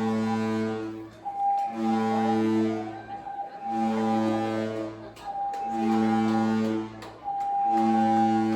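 Cruise ship's horn sounding a string of long blasts, about a second each, all on the same low pitch, with a higher single tone filling the short gaps between them.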